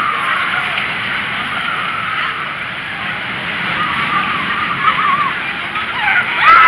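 Vekoma SLC steel inverted roller coaster train running along its track overhead, a steady rushing roar that swells sharply louder near the end as the train passes close.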